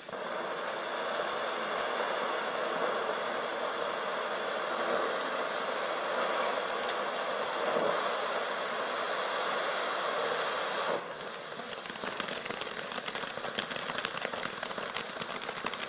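Sky Bacon Star Factor firework fountain spraying sparks with a steady hiss. About eleven seconds in the hiss drops, giving way to rapid crackling pops as the fountain throws out small bursting stars.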